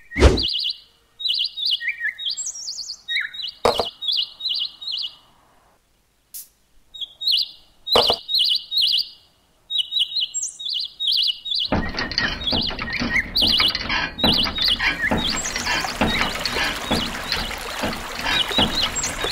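Small bird chirping in quick repeated calls, broken by three sharp knocks. About twelve seconds in, a steady stream of water starts splashing as it runs from a miniature hand pump down a wooden chute into a little pond, with the chirping going on over it.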